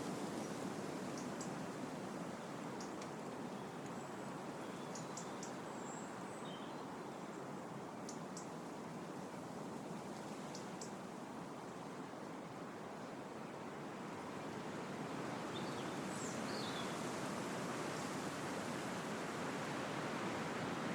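Wind blowing through trees, a steady rushing of leaves that eases slightly mid-way and swells again near the end. Scattered short, high bird chirps and calls sound over it.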